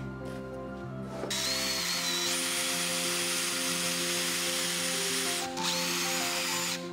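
Electric drill with a twist bit boring a hole through a small plywood block: the motor whine and cutting noise start about a second in, ease off briefly about five and a half seconds in, then run again until just before the end. Background music plays underneath.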